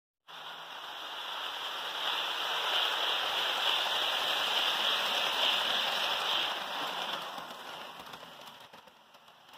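HO scale Kato Amtrak train, a GE P42DC locomotive pushing bi-level coaches, rolling close past on the track with a steady rushing hiss. The hiss builds, is loudest as the cars go by, then fades away over the last couple of seconds.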